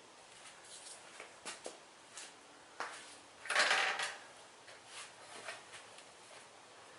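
Scattered light clinks and knocks of metal tools and parts being handled, with one louder scraping clatter lasting under a second about halfway through.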